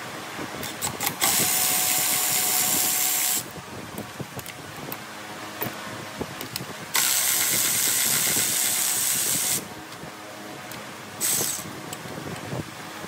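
A power tool run in three bursts: about two seconds, about two and a half seconds, and a short one near the end. Small clicks and knocks of tool handling come between the bursts.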